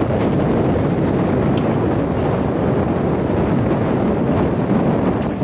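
Wind buffeting the microphone in a steady, loud rumbling rush.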